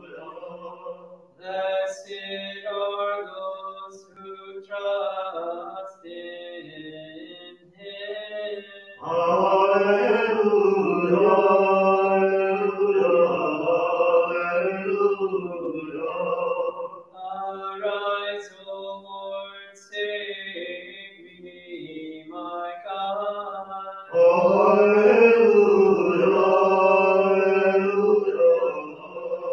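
Byzantine liturgical chant at Vespers: a single voice chants psalm verses, answered twice by louder, fuller group singing, about 9 seconds in and again about 24 seconds in.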